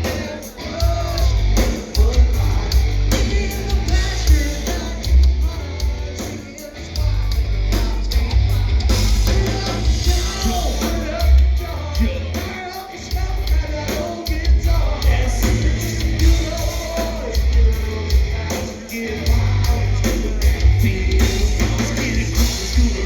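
Live rock band playing loud with heavy, pulsing bass, and singing and yelling over the music.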